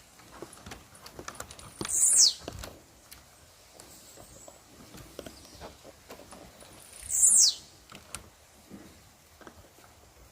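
Blue-black grassquit (tiziu) singing: two short, high notes falling in pitch, about five seconds apart, with faint scattered clicks between them.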